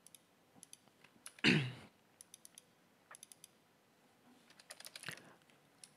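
Computer keyboard being typed on in short bursts of a few quick keystrokes, with a brief louder noise about one and a half seconds in.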